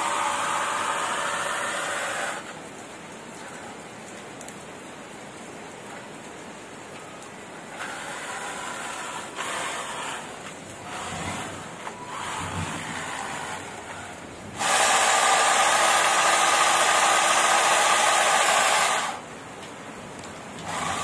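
Small electric motors of a model RC dump truck with a hydraulic gear pump whining in bursts: rising in pitch at first, then short on-off spurts, then a loud steady run of about four seconds that stops sharply. A steady hiss of rain lies under it.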